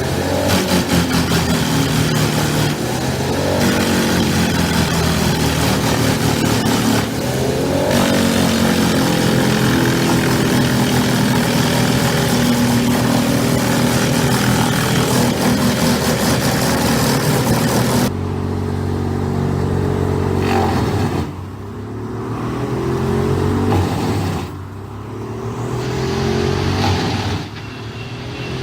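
Large industrial wood chipper at work: a heavy engine running under load beneath a dense, clattering noise of wood being chipped. About two-thirds of the way through, the chipping noise stops abruptly, leaving the engine running on its own, its pitch rising and falling.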